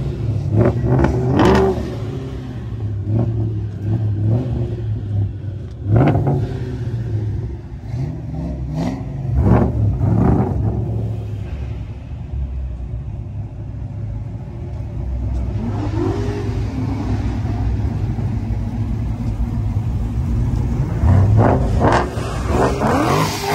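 Ford Mustang engine idling loudly and being blipped in short, sharp revs several times. It settles into a steadier idle through the middle, with one rising rev partway through and more quick revs near the end.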